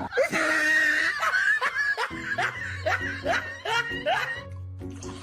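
Background music with a person laughing in short repeated bursts, which fade out shortly before the end.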